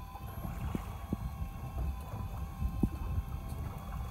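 Steady low rumble of wind on the microphone and a fishing boat's drone at sea, with a faint steady whine and a few light knocks.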